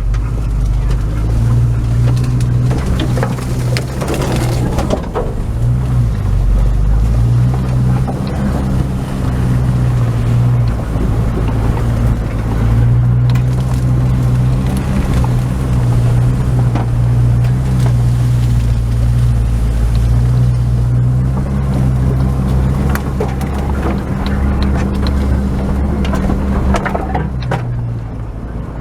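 Opel Frontera A Sport's engine running at low revs as the 4x4 crawls off-road, its note dipping and picking up again a few times. Occasional knocks and rattles come from the body and suspension over the rough ground.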